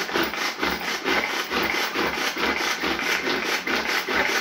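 Hand-pulled string food chopper being pulled again and again, its blades spinning through green chillies in the plastic bowl. It makes a quick, even rasping whirr, about three strokes a second.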